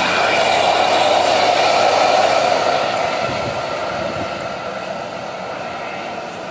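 Engines of two coach buses pulling away, a steady rushing noise that is loudest about two seconds in and then fades as the buses move off.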